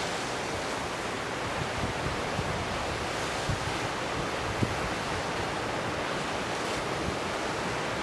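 Sea surf washing against a rocky shore in a steady rush, with a few soft low thumps.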